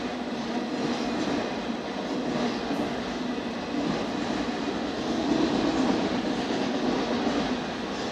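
Union Pacific freight train's autorack cars rolling past, a steady noise of steel wheels running on rail.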